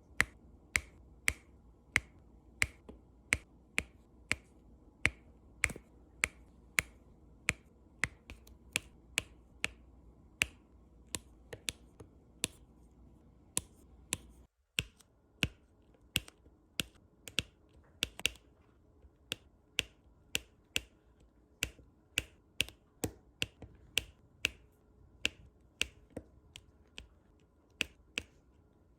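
Crisp, regular popping clicks, about one and a half a second, from diamond-painting drills being pressed one by one onto the sticky canvas with a drill pen. There is a brief break about halfway through.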